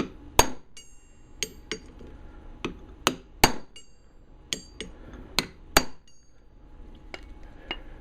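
About a dozen sharp metal-on-metal hammer taps at an uneven pace, some with a brief ring, as a new steel retaining ring is worked into the head of a Snap-on half-inch ratchet.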